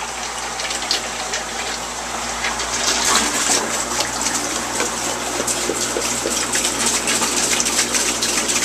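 Distilled water pouring from a plastic gallon jug into a fish tank, a steady gushing splash: the tank being topped up.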